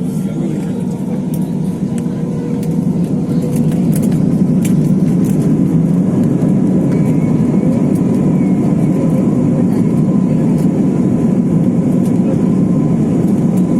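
Jet airliner's engines heard from inside the cabin, building to take-off power: a deep, steady rush that swells over the first few seconds and then holds loud, with a faint high whine and a few light rattles.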